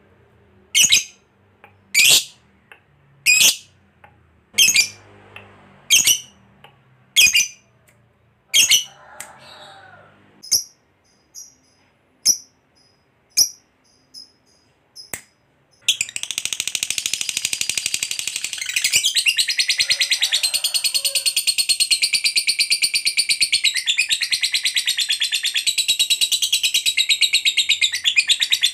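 Lovebird calling: a sharp, high chirp repeated about every second and a quarter, growing weaker after about nine seconds. Then, about sixteen seconds in, a long unbroken rapid chattering trill starts, the 'ngekek panjang' (long chatter) that lovebird keepers prize.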